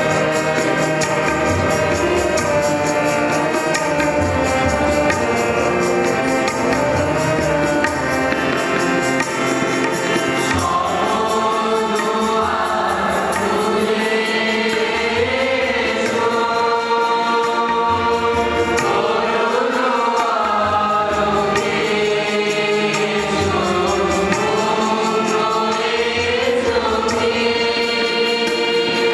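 Music with a choir singing, steady throughout; the sung voices come through more strongly from about ten seconds in.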